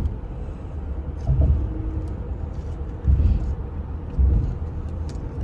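Steady low road rumble of a moving car, heard from inside the cabin, with three louder low surges.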